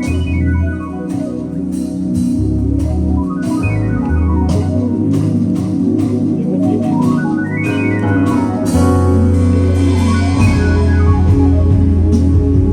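Live band instrumental: a keyboard with an organ sound plays quick runs of notes up and down, over deep sustained bass notes and drums.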